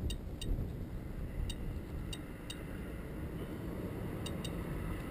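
SOEKS Geiger counter clicking at irregular intervals, about seven short high clicks, each one a detected particle. The count reflects a background reading of about 0.78 µSv/h, which the device flags as high radiation background and the owner calls way above normal. A steady low rumble lies underneath.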